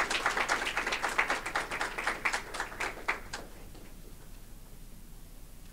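Audience clapping, a round of applause that thins out and stops about three and a half seconds in.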